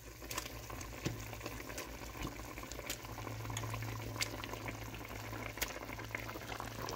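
Beef broth boiling in an enamelled cast-iron pot, bubbling, with scattered small plops and clicks as pieces of smoked turkey are put in by hand. A low steady hum runs underneath, stronger in the second half.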